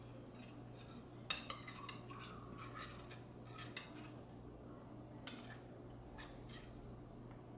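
A cooking utensil clinking and scraping against a pan, stirring the chicken and vegetable filling, in a dozen or so light scattered clicks.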